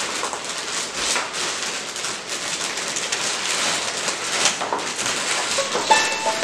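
Clear plastic bags of building-block pieces crinkling and rustling as they are handled and lifted out of a cardboard box, with the pieces inside clicking against each other.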